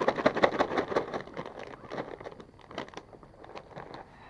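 Plastic shopping bags crinkling and rustling as hands rummage through them. The rustling is loudest in the first couple of seconds and thins out after that.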